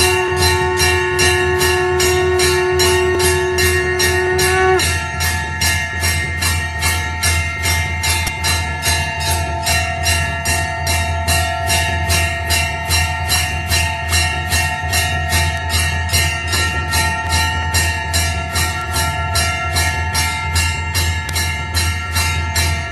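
Hindu temple bells (ghanta) rung continuously for aarti, struck in a steady rapid rhythm of about three strikes a second, with bright metallic clangs over lingering ringing tones. About five seconds in, one deeper ringing tone stops and the mix of tones changes. A steady low hum runs underneath.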